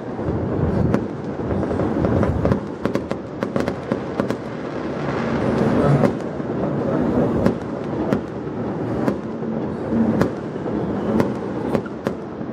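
Aerial fireworks bursting: many sharp bangs and cracks come in quick, irregular succession over a continuous low rumble of booms.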